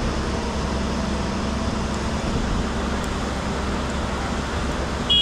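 Steady outdoor rumble with a hiss over it, without any distinct knocks or voices. A high-pitched beep starts at the very end.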